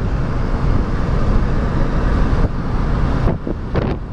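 Steady low rumble of a vehicle driving along, heard from inside the cab: engine and tyre noise on the road, with a few short knocks near the end.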